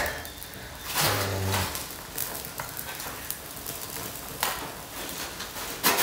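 Paper and small twigs burning in a metal fire pit, giving scattered sharp crackles and snaps as the freshly lit kindling catches, with twigs being shifted in the pit by a gloved hand.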